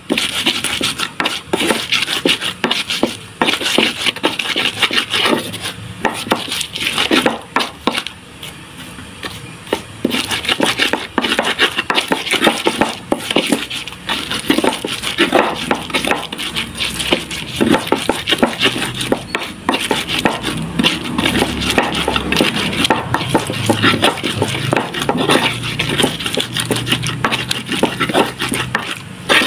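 Stone pestle (ulekan) pounding and grinding spice paste in an earthenware mortar (cobek): rapid, uneven knocks and scrapes, easing off briefly about eight seconds in before resuming.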